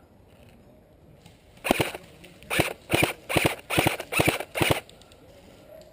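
Airsoft rifle firing a quick pair of shots, then six short bursts of two or three shots each, about two bursts a second.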